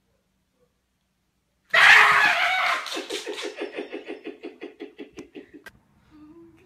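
A person lets out a sudden loud shriek, then breaks into rapid laughter that fades away over a few seconds.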